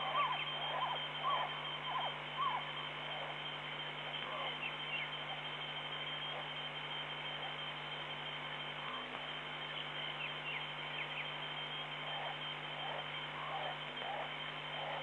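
Night-time wildlife ambience: small animals calling in short, falling chirps, clustered in the first few seconds and again in the second half, over a steady electrical hum and a thin high whine from the stream's audio.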